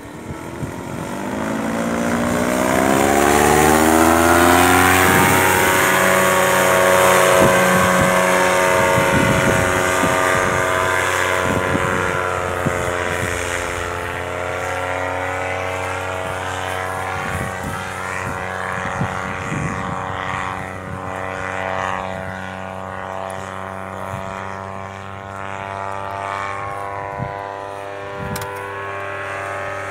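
Paramotor engine and propeller buzzing as it flies past low overhead. The pitch climbs over the first few seconds, it is loudest around five seconds in, then it grows somewhat quieter and steadier as the paramotor flies away.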